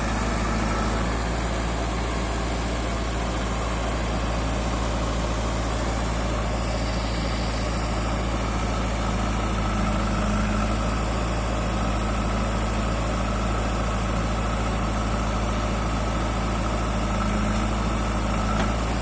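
Heavy diesel engine of a construction machine running steadily at low revs, a constant low drone with no change in pitch.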